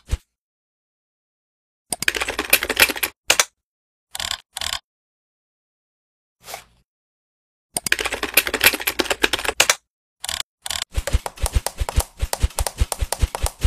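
Computer keyboard typing in bursts of rapid keystrokes with short pauses between them. The last few seconds are a faster, even run of heavier key clacks.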